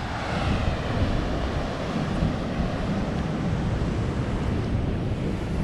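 Ocean surf washing against a rocky shore, with wind buffeting the microphone in a steady low rumble.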